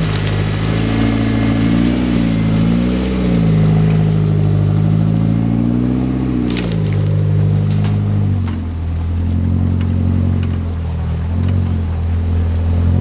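Off-road rock crawler's engine working at low revs, blipping up and dropping back several times, then settling to a lower, steadier pitch after about seven seconds, with a few sharp knocks and crunches.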